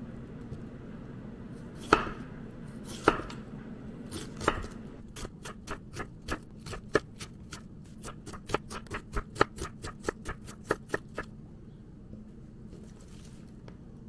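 Kitchen knife cutting half a cabbage on a wooden cutting board: three separate heavy chops, then a quick run of slicing strokes at about four or five a second that stops abruptly about eleven seconds in.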